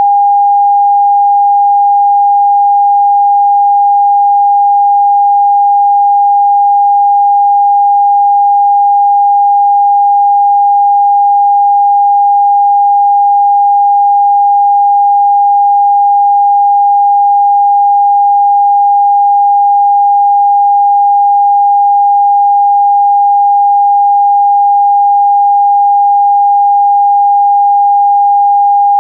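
Television test-card tone: one continuous, steady pure tone of mid-high pitch broadcast with the test pattern, unchanging in pitch and level.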